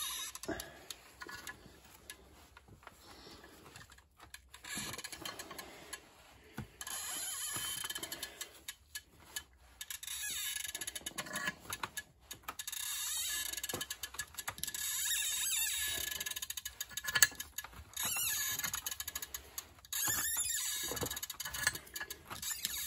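C-clamp screw being turned in strokes against a seized Volvo S80 front brake caliper piston, creaking and squeaking in bursts of a second or two with short pauses between, and one sharp click partway through. The piston is stuck and forcing it back pushes old brake fluid out of the caliper.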